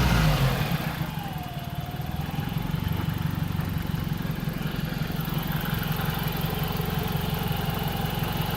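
Nissan 180SX's CA18DET turbocharged four-cylinder engine idling steadily, its revs falling back from a blip in the first half-second.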